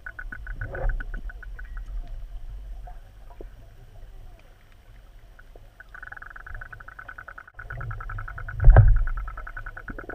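Heard underwater, a boat motor's fast pulsing buzz drops away about two seconds in and comes back about six seconds in, over a low rumble. A single dull thump near the end is the loudest sound.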